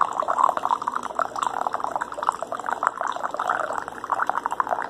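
Hot coffee pouring in a thin stream from a thermos flask into a ceramic mug, a steady trickling that cuts off right at the end.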